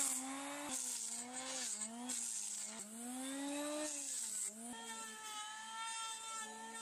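Corded electric hand planer shaving the surface of a log. Its motor whine sags in pitch and recovers several times as the blades bite into the wood, over a hiss of flying chips.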